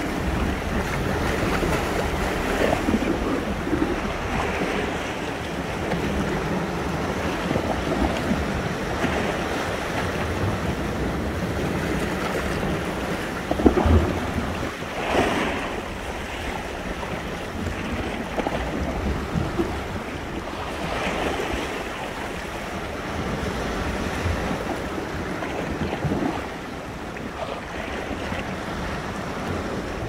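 Sea waves breaking and washing ashore continuously, with wind buffeting the microphone. Two louder surges of surf come about halfway through.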